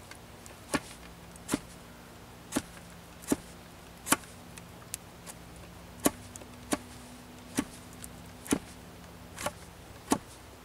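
Small folding knife whittling the end of a green wooden stick: each stroke through the wood gives a short, sharp crack, about eleven of them at an uneven pace of roughly one a second.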